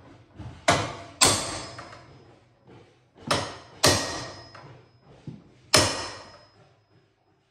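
Claw hammer driving thick 8d common nails into a wooden post in a cramped gap: five sharp strikes, two quick pairs and then a single blow, each ringing briefly.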